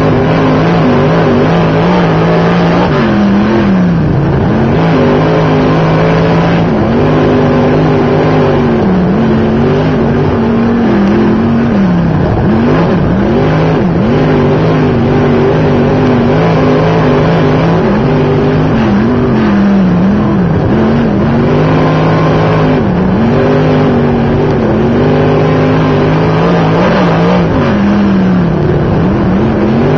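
A dirt modified race car's V8 engine running hard at racing speed, heard from inside the car. Its pitch dips briefly every few seconds and climbs back as the driver lifts for the turns and gets back on the throttle.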